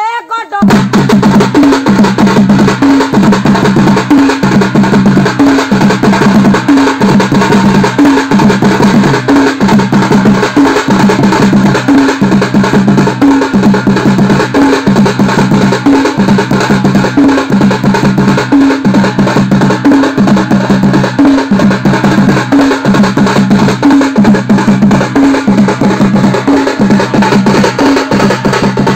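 Conga drums struck with sticks and a small barrel drum beaten with a curved stick, played loudly and fast in a steady, driving rhythm. The drumming starts about half a second in.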